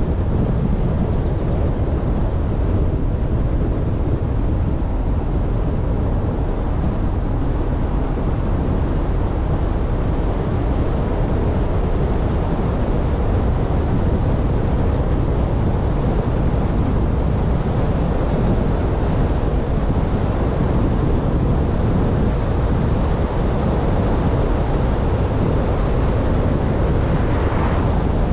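Steady wind rushing over the microphone, with the low rumble of a vehicle driving along a paved road.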